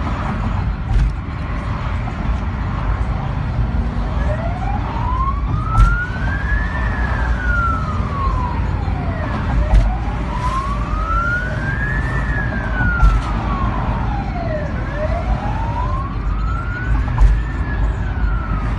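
Police motorcycle siren wailing, rising and falling slowly in three long cycles that begin about four seconds in, over steady road rumble heard from inside a following car.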